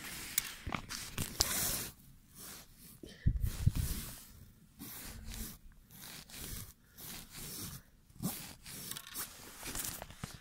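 Irregular crunching and scraping of ice chips and snow, mixed with rustling and handling bumps, including a heavier low thump about three and a half seconds in.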